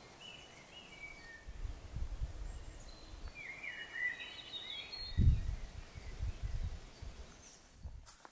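Forest ambience: small songbirds singing short chirping phrases, with low irregular rumbles on the microphone, the loudest about five seconds in.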